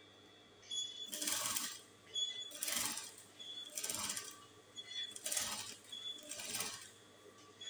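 Industrial sewing machine stitching in five short runs of about half a second to a second each, stopping briefly between runs as the fabric is repositioned. It is sewing soft crinoline onto a dress hem.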